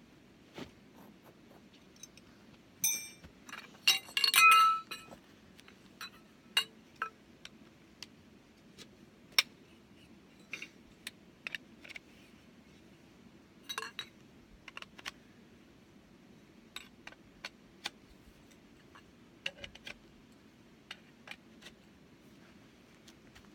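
Scattered clicks and clinks of small hard objects being handled, with a loudest cluster of ringing clinks about three to five seconds in and smaller ones later.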